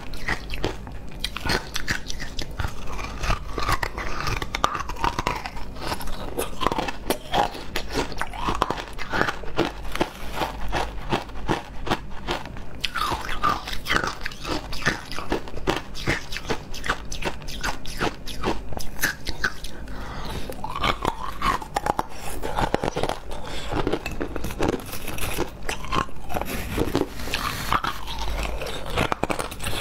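Hard chunks of ice being bitten and chewed: a dense, irregular run of sharp cracks and crunches.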